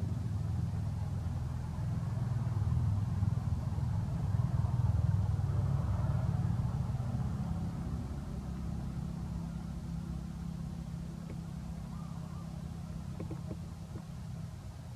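A low, steady engine hum that grows louder for a few seconds and then slowly fades.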